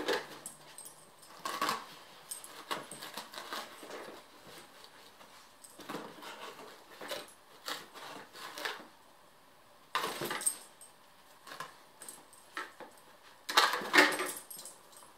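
Small dog nosing and shoving cardboard boxes across carpet to get at hidden treats: irregular scrapes, knocks and rustles of cardboard, with a jingle of collar tags. The loudest clatter comes near the end as a box is knocked over.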